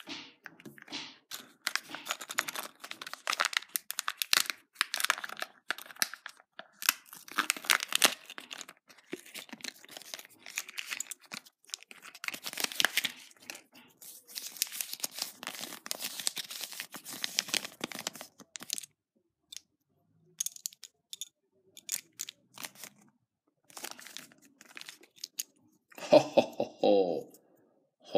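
Foil seal and plastic packaging of a Kinder Joy egg crinkling and tearing as it is peeled open and the toy capsule and paper leaflet are handled: quick irregular crackles that thin out after about 19 seconds. A short pitched sound comes near the end.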